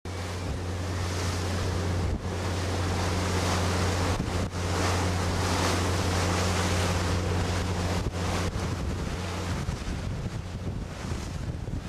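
Wind buffeting the microphone on the open deck of the ferry Azalea Maru under way, over the steady low drone of the ship's engines and the rush of sea water along the hull.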